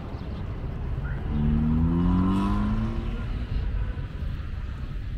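A motor vehicle drives past, its engine note dropping slightly in pitch as it goes by, over a steady low rumble of traffic and wind.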